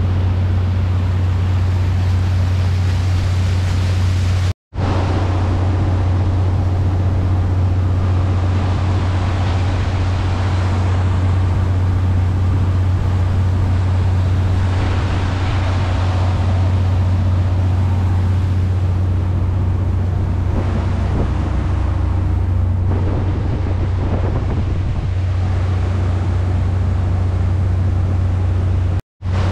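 Engine of a 1997 Albin 34 cruiser running steadily under way, a loud, even low drone, with water rushing past the hull and wind on the microphone. The sound cuts out for a moment about four and a half seconds in and again near the end.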